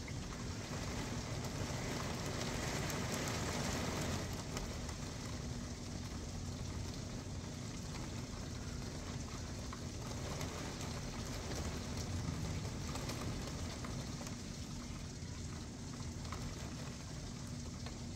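Heavy rain from a hurricane storm band pattering steadily, heard through a window, with gusts of wind; the rain and wind swell louder about two to four seconds in.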